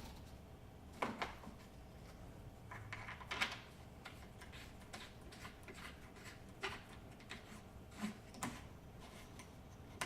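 Faint, scattered knocks and clicks of tools and a dust-extraction hose being handled and set in place, with the planer switched off.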